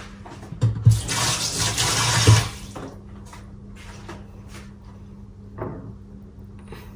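Kitchen tap running for about a second and a half as hands are rinsed under it, with a low thud as the flow starts and another as it stops.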